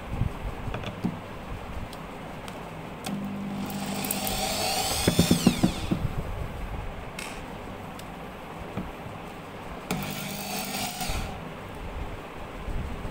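Power drill with a Phillips driver bit running in two short bursts, driving screws into plywood. The first run starts about 3 s in, lasts about three seconds, rises then falls in pitch, and has a few sharp clicks near its end. A second, shorter run comes about 10 s in.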